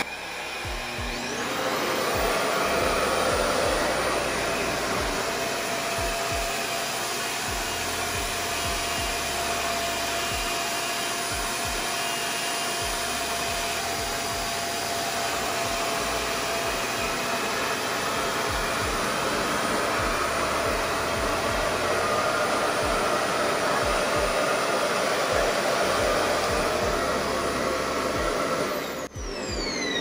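RevAir reverse-air hair dryer running, drawing air through the hair by suction: a steady rush of air with a faint steady whine. It comes up to speed over the first second or two and cuts off about a second before the end.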